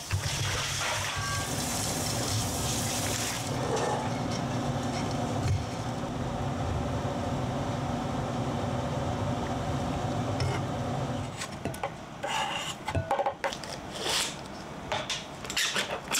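Kitchen cooking sounds: a knife on a wooden chopping board mincing garlic at the start, then a pan of spaghetti boiling in water with a steady hum. Light clicks and rustling of cheese packaging and paper come in the last few seconds.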